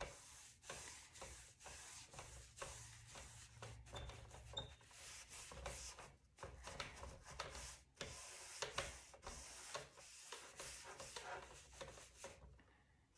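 Cling On paintbrush stroking primer onto a wooden cabinet door: faint, soft brushing swishes, many short strokes back and forth at an uneven pace.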